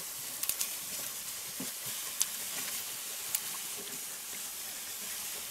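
Pork medallions sizzling on the grate of a charcoal kettle grill, a steady hiss, with a few sharp clicks of metal tongs on the meat and grate as the pieces are turned.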